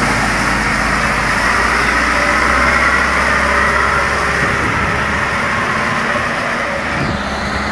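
Diesel engine of a wheel loader running as it passes close by and drives off through floodwater. Its low hum fades after about five seconds, over a steady rush of water.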